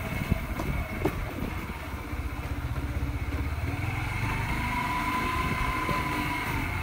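Motorcycle engine running as the bike rides along a street, a steady low rumble. A faint whine swells and fades again in the second half.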